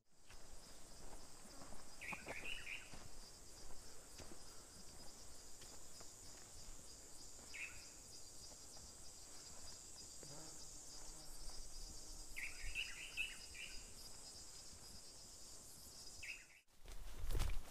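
A steady, high-pitched insect chorus, with short bird calls about two seconds in, around seven and a half seconds, a longer run of calls around twelve to thirteen seconds, and one more just before the end. Near the very end a brief, louder burst of low rumbling noise cuts in.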